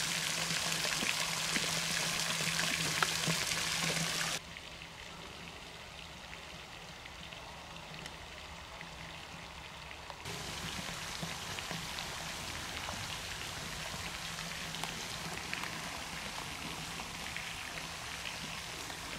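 Rain falling: a steady hiss of many small drop ticks, with a faint low hum underneath. The level drops abruptly about four seconds in and comes back up around ten seconds.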